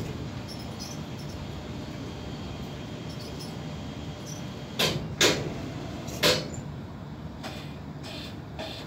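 Suspended gondola work platform being run from its control box during a leveling test: a steady low rumble with three sharp clacks around the middle, two close together and a third about a second later.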